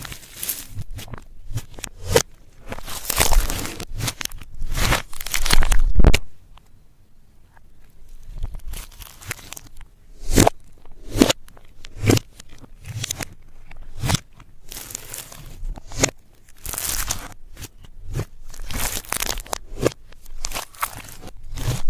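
Makeup and its plastic packaging being broken up and crushed by hand: irregular crunching, crackling and crinkling with sharp clicks, loudest about six seconds in.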